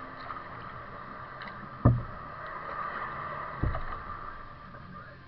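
Kayak being paddled: two dull thumps about two seconds apart from the paddle strokes, over a steady hiss.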